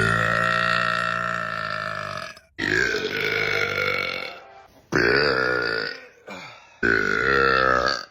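A man burping loudly four times in a row, each burp long and drawn out, lasting one to two and a half seconds.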